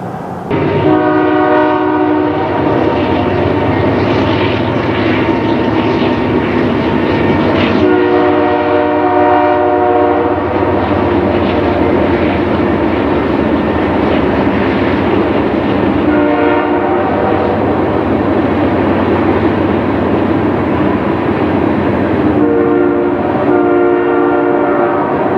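Nathan Airchime multi-chime locomotive air horn sounding a chord four times over the steady rumble of the passing train. The blasts go long, long, short, long, the pattern of a grade-crossing warning.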